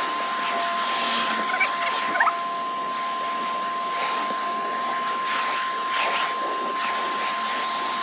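Pressure washer jet spraying water onto a pontoon boat's bench seat cushions: a steady hiss of spray with a steady high whine over it.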